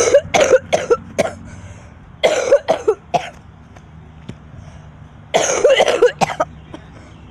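A sick child coughing in three short fits, each a quick run of hard coughs.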